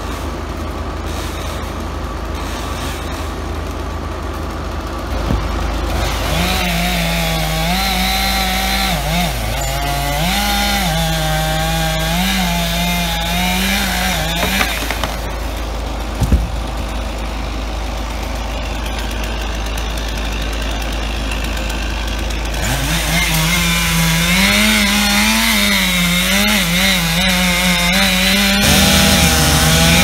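Gas chainsaw cutting fir wood, running at high revs in two long stretches, its pitch sagging and recovering as the chain bites, over a steady low engine hum. A single sharp thump about sixteen seconds in.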